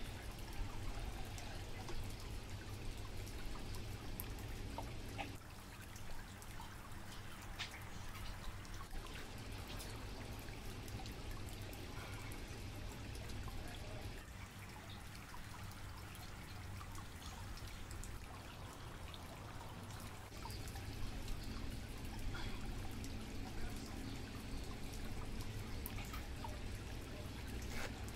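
Water trickling steadily in an aquarium tank over a low, constant hum, with a few faint clicks scattered through.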